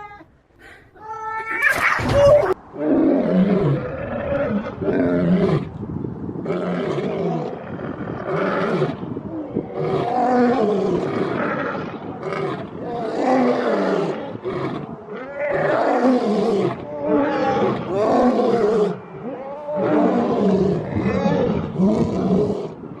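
A lion roaring and growling in a long run of repeated calls, after a sharp crack about two seconds in.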